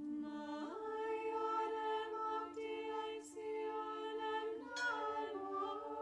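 Slow sung music: voices in harmony holding long notes, moving to a new chord just under a second in and again near the end.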